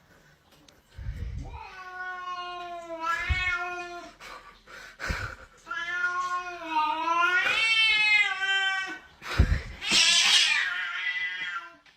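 Domestic cat yowling: two long, drawn-out meows that waver up and down in pitch, followed by a short noisy burst near the end.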